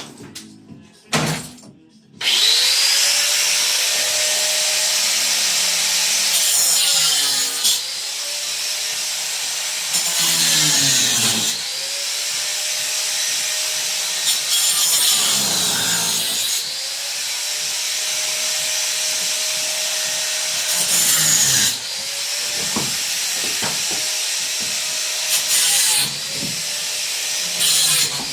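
A handheld electric power tool cutting into a bathroom's built-in boxing as it is dismantled. A few clicks come first, then the tool starts about two seconds in and runs on, its motor pitch dipping and recovering as it bites, with louder stretches every few seconds.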